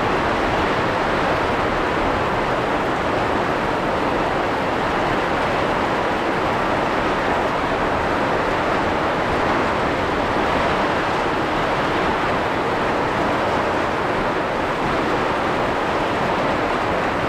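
Steady rain falling, a loud even hiss that does not let up.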